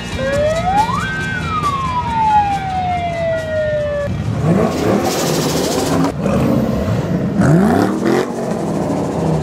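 A siren winds up in about a second, holds briefly, then winds slowly down over about three seconds. Car engines then run and rev at parade speed, with two quick rising revs near the end from a Dodge Challenger pulling past.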